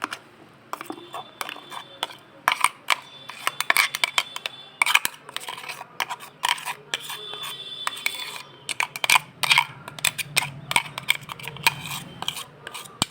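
Spoon clinking and scraping against a dish in quick, irregular strokes, some strikes ringing briefly, as ground mint chutney is spooned into sour curd.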